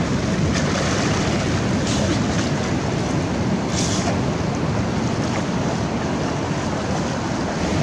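Shallow ocean surf washing over wet sand, with wind buffeting the microphone and a few short splashes in the water, the loudest about four seconds in.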